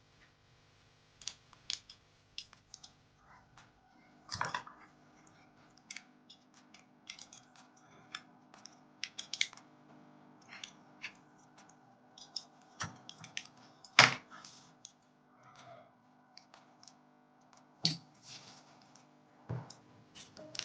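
Irregular small clicks and taps of model-kit parts (a metal alloy inner frame and its plastic armour pieces) being handled and pressed together. There are louder clicks about four seconds in, near the middle and near the end.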